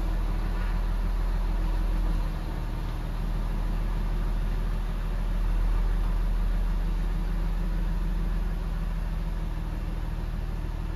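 2003 Porsche Boxster's freshly serviced and reinstalled flat-six engine running with a steady low hum that swells slightly a couple of times.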